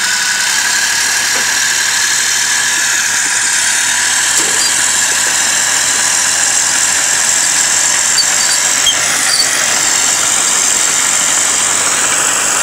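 Crawler bulldozer running steadily under load as it drags a houseboat across the ground, with a steady high-pitched squeal over the engine.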